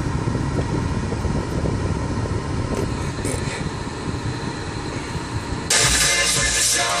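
Steady low rumble inside the car's cabin, then about five and a half seconds in a song with singing starts suddenly and plays loud from the aftermarket Boss car stereo.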